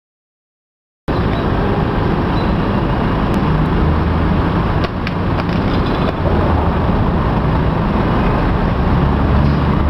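City street traffic noise, a steady low rumble of cars, starting abruptly about a second in, with a few faint clicks around the middle.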